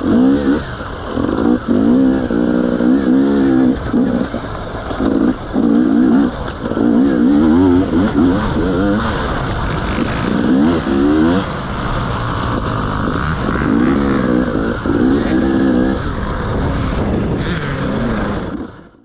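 Off-road motorcycle engine revving in repeated bursts, its pitch rising and falling with the throttle. It fades out near the end.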